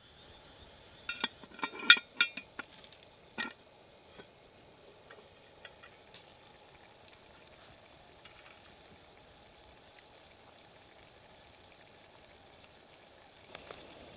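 Cookware handled over a campfire: a quick cluster of clinks and knocks in the first few seconds, then a faint steady sizzle with scattered small ticks and a couple more clinks near the end.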